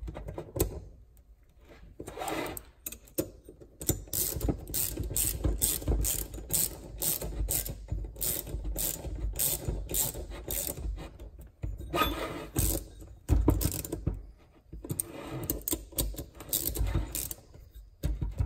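Ratchet socket wrench clicking in runs of about three clicks a second, with short pauses between runs, as the housing bolts of a Volvo Penta raw water pump are tightened down to seal the cover.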